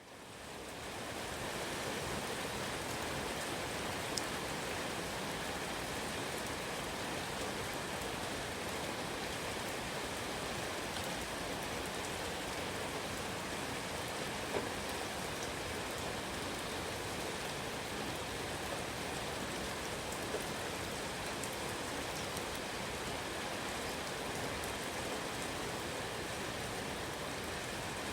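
Steady rain, an even hiss of rainfall on surfaces, with a few louder single drops. The sound fades in over the first second or two.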